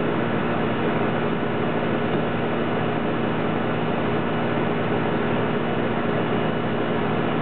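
Steady rushing noise with a low, even hum in it, unchanging throughout.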